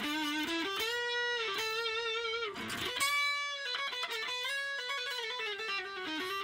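Electric guitar played through a Raizin "Booster" effect pedal: single-note lead phrases with notes that bend and slide, and two long held notes with vibrato.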